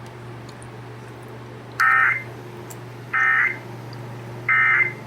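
Three short bursts of warbling EAS/SAME digital data tones from a NOAA Weather Radio broadcast, about a second and a half apart: the End of Message (EOM) signal that closes an alert. A steady low hum runs underneath.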